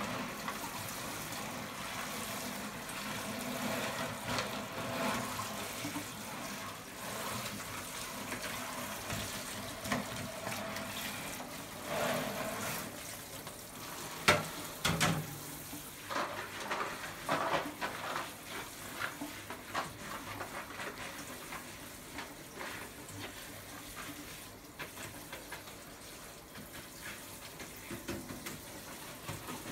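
Metal scoop digging soaked seed out of a plastic tub and tipping it into a growing tray: a wet, hissing rustle of grain, with a run of knocks and clatters in the middle, the sharpest about halfway through.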